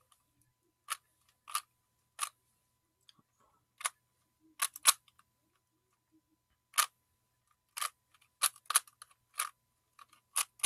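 Rubik's-brand 3x3 cube being turned by hand, its plastic layers clicking about a dozen times at uneven intervals as the moves are made.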